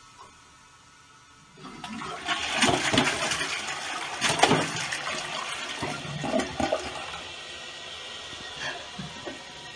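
Toilet flushing: the water starts to rush into the bowl about a second and a half in, is loudest for the next few seconds, then slowly dies away.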